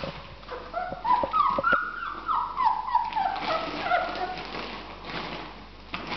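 Twelve-day-old mastiff-type puppies crying for milk: a run of short whining squeals, each falling in pitch, about three a second, dying away after about four seconds.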